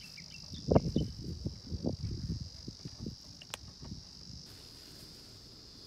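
Steady, high-pitched chirring of insects, with a few faint bird chirps at the very start. Over it, a run of soft knocks and clatter for the first four seconds or so as a bottle of cooking oil is poured into a small frying pan on a camp stove and set down, with one sharp click about three and a half seconds in.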